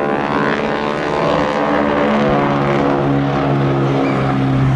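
Radial engine of a Boeing Stearman biplane droning as it flies past. Its pitch drops over the first couple of seconds, then holds steady.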